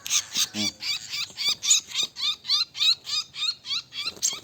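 Rapid, evenly spaced high chirps from a small bird, about four a second, each a quick upward-hooked note, with a brief low sound about half a second in.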